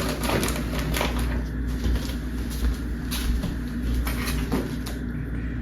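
Rustling and crinkling of food packets and a soft bikepacking bag being handled and packed: a few short, irregular rustles over a steady low rumble.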